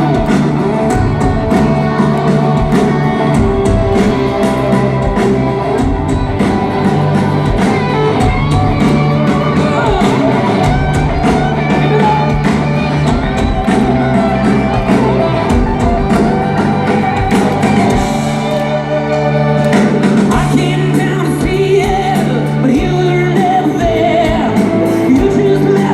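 Live rock band performing: voices singing over guitar and band accompaniment, loud and continuous. The bass end drops away briefly about eighteen seconds in, then comes back.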